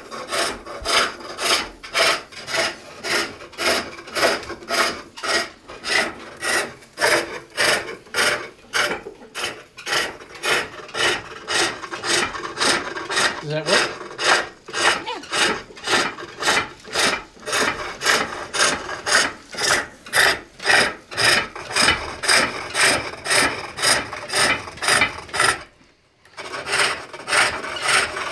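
Hook tool cutting into green wood on a pole lathe: rhythmic rasping cuts, about two a second, each time the treadle drives the blank around on the cutting stroke. The cutting stops for a moment near the end, then goes on.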